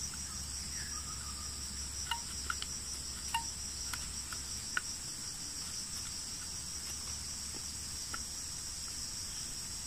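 Steady high-pitched insect chorus, with a few light clicks as a bamboo stick is handled and fitted against a wooden plank.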